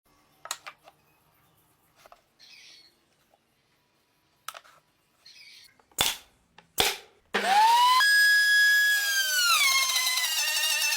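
A few light clicks and two sharp knocks, then a power tool's motor whining from about seven seconds in. Its pitch climbs as it spins up, holds, drops twice and rises again as the motor speeds and slows.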